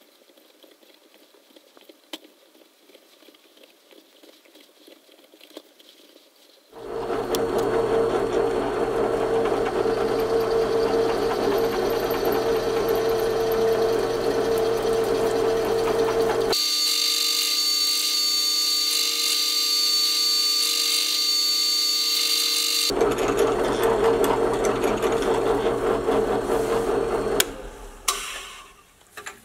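Drill press running and drilling into an aluminum block, a steady motor hum with a strong low tone that starts about a quarter of the way in. For several seconds in the middle a high-pitched whine takes over, and near the end the drill stops, followed by a few knocks.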